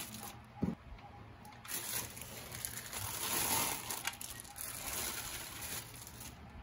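Clear plastic bag crinkling and rustling as a lightstick is slid out of it by hand, loudest about halfway through.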